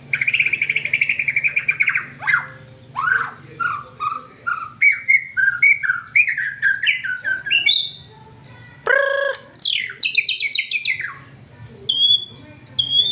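White-rumped shama singing a fast, varied song. It opens with a rapid trill lasting about two seconds, then runs through short whistled notes that step up and down. A loud, fuller note comes past the middle, and high clear whistles follow near the end.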